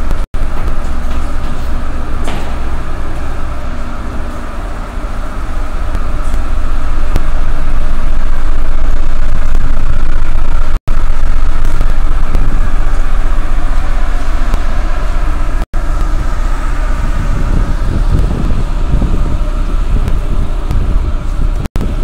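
Loud, steady rumble on an open ferry deck: wind buffeting the microphone over the ship's machinery drone, swelling louder in the middle. The sound cuts out for a split second a few times.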